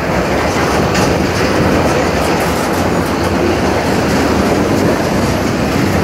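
Freight cars of a slow-moving train, covered hoppers and boxcars, rolling past. Their steel wheels make a steady rumble on the rails, with occasional clicks.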